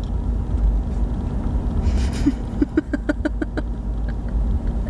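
Steady low rumble inside a car's cabin in slow traffic, with a short burst of laughter, a quick run of short 'ha' pulses, about two and a half seconds in.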